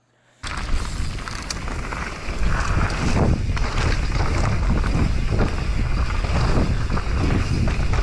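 Wind buffeting an action camera's microphone as a mountain bike rides fast down a damp dirt trail, with tyres on the dirt and the bike knocking and rattling over bumps. It cuts in abruptly about half a second in and stays steady.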